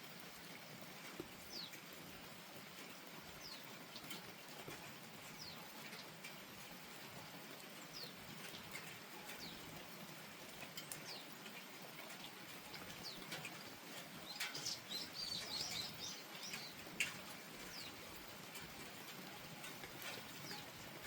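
Steady light rain falling, with a small bird giving short falling chirps every second or two and a brief burst of twittering about fourteen seconds in. A single sharp tap sounds about seventeen seconds in.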